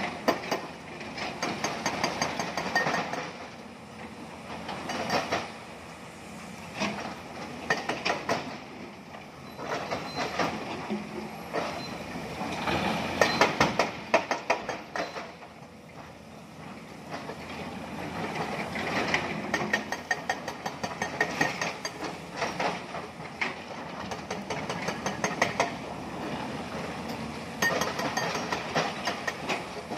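Hydraulic excavators working broken stone: diesel engines running under load, with repeated bursts of rocks clattering as the XCMG excavator's bucket digs the rubble and dumps it into a steel dump-truck bed. The loudest clatter comes about halfway through, as a load drops into the truck.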